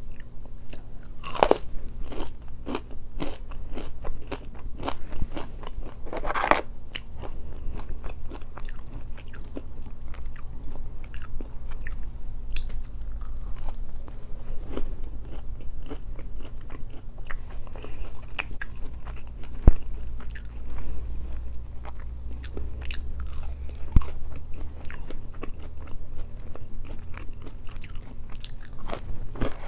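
Close-miked chewing of waffle fries: irregular crunching and wet mouth sounds full of small clicks, with two sharper clicks in the second half. A low steady hum runs underneath.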